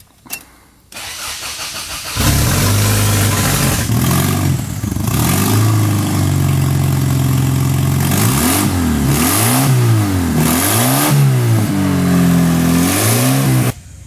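Engine of a remote-controlled Toyota Camry starting about two seconds in and running. In the last few seconds it is revved up and down over and over through the remote throttle, then it cuts off suddenly near the end.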